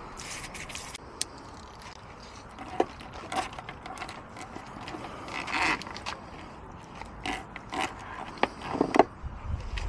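Food packaging rustling and crinkling, with light knocks and clicks as items are handled and set down; the louder rustling comes near the start and in the middle.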